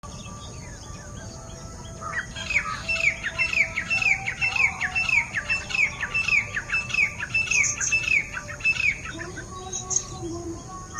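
Grey francolin calling: a loud, rapid series of short down-slurred notes, about three a second, starting about two seconds in and stopping about two seconds before the end. Fainter calls of other birds run beneath it.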